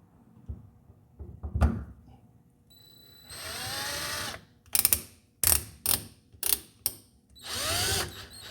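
Adjustable-speed drill driving small screws: one run of about a second, a string of short trigger bursts, then another run starting near the end, its pitch rising and falling with the trigger. A light knock comes before it, about one and a half seconds in.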